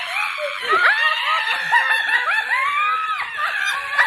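Several women laughing and shrieking at once, in short overlapping bursts.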